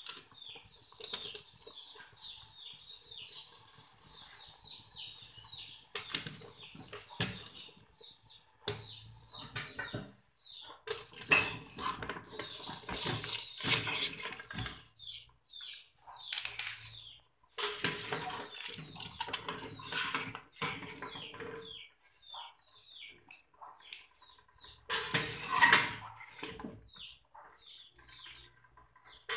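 A metal skimmer scraping and knocking against a steel stockpot in bouts as boiled chicken feet are scooped out, with water splashing and dripping back into the pot and the feet dropping into a plastic colander. Small birds chirp repeatedly in the background, several short falling notes a second.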